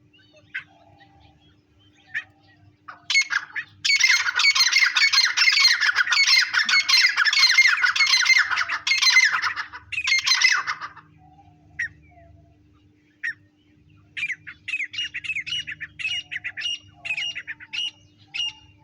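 Francolins (teetar) calling: about four seconds in, a loud, dense run of rapid, harsh repeated calls that goes on for some seven seconds, then after a pause a series of shorter repeated notes, about two or three a second, near the end.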